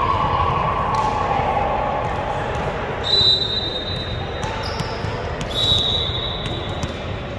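Sounds of a volleyball game in a gym hall: a steady murmur of voices with sharp ball hits and thumps. About three seconds in, and again near six seconds, a long steady high-pitched tone sounds for over a second.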